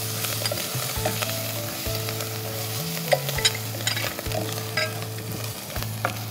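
Onions and spice paste frying in oil in a pot, sizzling steadily, while a wooden spatula stirs and scrapes through them with scattered clicks against the pot. This is the stage of frying the masala (onion, garlic, ginger, turmeric, chilli and cumin) for a curry.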